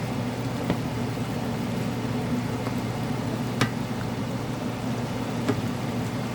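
Bok choy bhaji cooking in an uncovered pot, a soft simmering sizzle as the liquid cooks down, under a steady low hum. Three light clicks, about a second in, midway and near the end.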